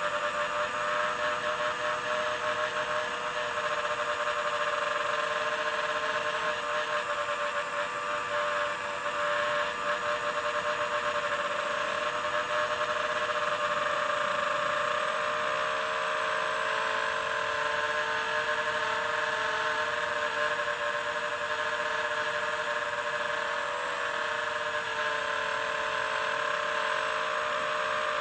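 FPV quadcopter's brushless motors and propellers running in flight: a steady whine whose pitch drifts slightly up and down with the throttle.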